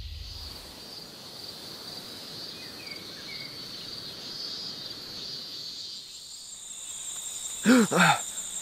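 Insects chirring in a steady high-pitched drone, which shifts to a higher pitch about six seconds in. Near the end a young man gasps twice, loud and short.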